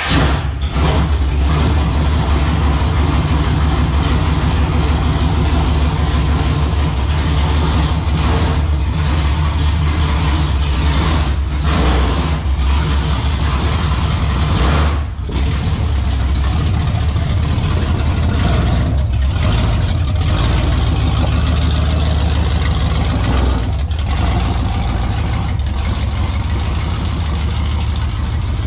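Small-block Chevy V8 in a 1970 Camaro race car running loud and steady with a deep low note.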